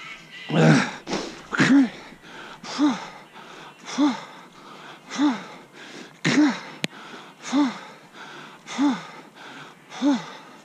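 A runner's heavy rhythmic breathing while running: a forced, voiced exhale about every 1.2 seconds, each with a short tone that rises and falls. A single sharp click sounds about two thirds of the way through.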